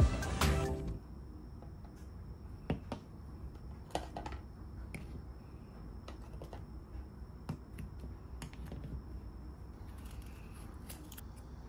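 A metal spoon scraping and clicking against abalone shells as soy-braised abalone is prised out of them, a few light scattered clicks over quiet room tone. Background music fades out in the first second.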